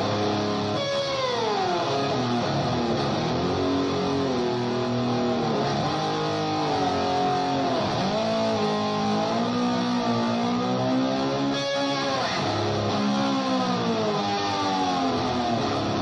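Electric guitar played with a slide, its notes swooping down and up in long glides that imitate a motor scooter revving and slowing, over a held low note.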